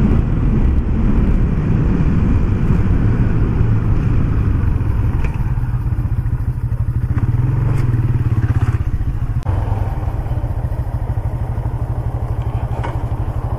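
Modenas Jago motorcycle engine running steadily, with a slight drop in level about nine and a half seconds in.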